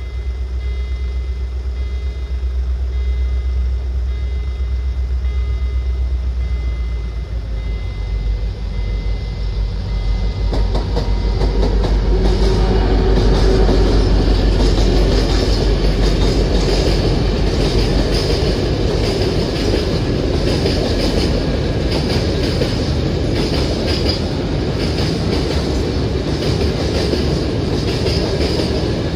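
Freight train rolling through a level crossing. A low steady hum and a thin steady high tone come first, then from about ten seconds in the rumble of the wheels on the rails builds and holds, with a quick clickety-clack of wagon wheels over rail joints.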